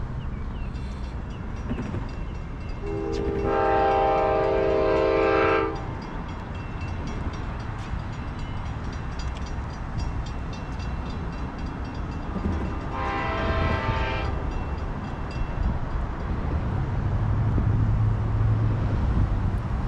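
Horn of the approaching Amtrak Silver Meteor's lead locomotive, a GE P42DC, sounding twice: a long chord blast, then a shorter one. Steady rapid ticking runs underneath, and a low locomotive rumble builds near the end as the train draws closer.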